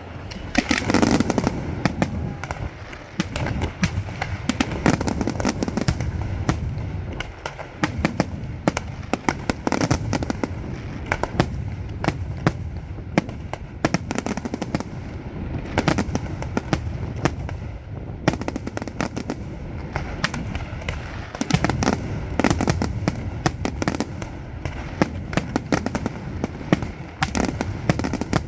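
Fireworks display going off without a break: rapid sharp bangs and crackles over a constant low rumble of shell bursts.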